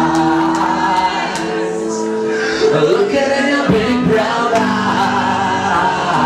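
Live band music with singing, the crowd singing along.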